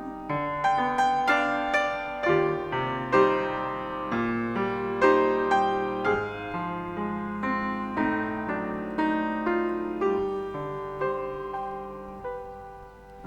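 Piano playing a slow, gentle instrumental passage of chords and melody notes, growing softer near the end.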